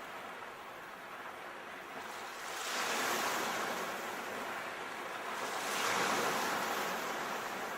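Sea waves breaking and washing in, with two swells of surf about three seconds apart over a steady background wash.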